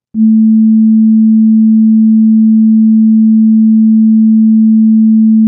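A single steady, pure sine tone, low in pitch (about the A below middle C). It is played by the PhET Waves Intro sound simulation with its frequency slider at the minimum setting, and it starts a moment in at a constant loud level.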